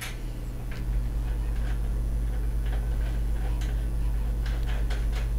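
Light metal clicks and ticks, a few a second and irregular, as a charging die body is screwed by hand onto a powder measure, over a steady low hum.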